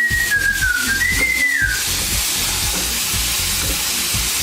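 Hot oil sizzling in a frying pan as food fries, with a few low knocks from stirring. Someone whistles a few stepping notes over it for the first couple of seconds.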